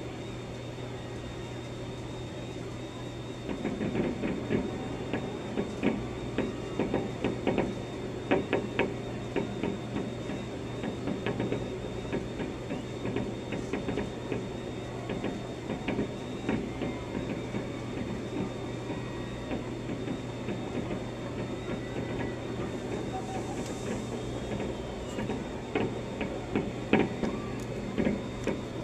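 Fireworks going off, heard muffled through an office window: a quick run of pops and bangs starting a few seconds in, thinning out midway and picking up again near the end, over a steady low hum.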